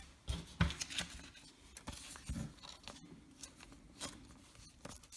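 Trading cards being handled: irregular light clicks and rustles of card stock sliding and tapping together, with a few sharper clicks in the first second.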